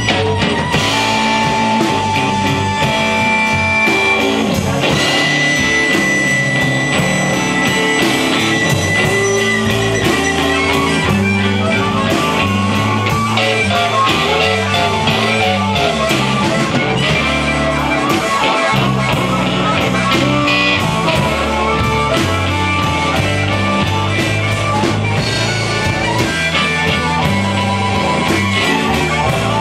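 Live blues band playing an instrumental section: an amplified harmonica soloing with long held notes over electric bass, electric guitar and a drum kit.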